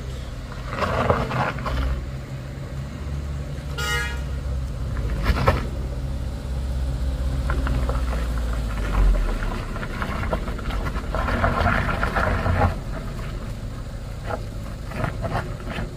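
Suzuki Ertiga MPV's engine running low as it pulls up a muddy slope, with one short vehicle horn toot about four seconds in and a single knock a moment later.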